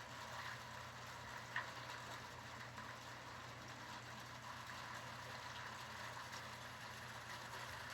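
Steady rain falling on and around a closed steel louvered pergola roof, an even hiss with scattered light ticks of drops, the sharpest about one and a half seconds in. A low steady hum runs underneath.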